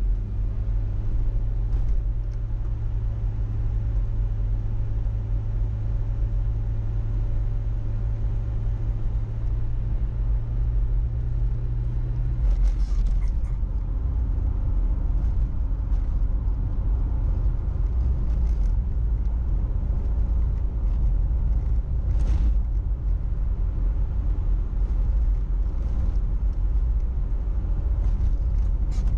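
A car driving on a road: steady engine and road rumble, with a steady low engine hum that changes pitch about twelve seconds in.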